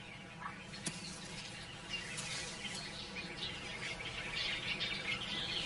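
Wild birds chirping in the bush, the calls getting busier about two seconds in, over a low, steady background hum.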